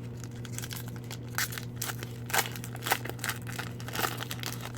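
Trading card pack wrapper crinkling and tearing in short irregular bursts as the pack is opened, over a steady low hum.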